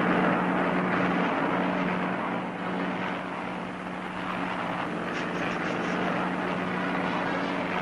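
Propeller airplane's engines droning steadily in flight: a continuous low hum over a rushing noise that eases off slightly midway.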